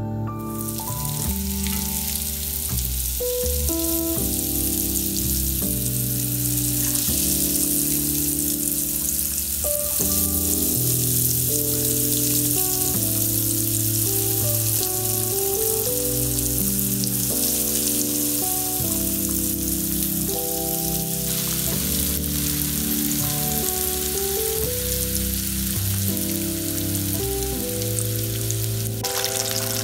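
Breaded corn dogs sizzling as they shallow-fry in hot vegetable oil in a pan. The sizzle starts as the first one goes into the oil. A soft piano melody plays underneath.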